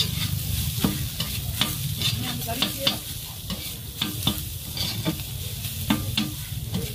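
Two metal spatulas chopping and scraping minced meat and diced onion on a hot flat griddle: irregular sharp clacks of steel on the plate, about one or two a second, over steady sizzling.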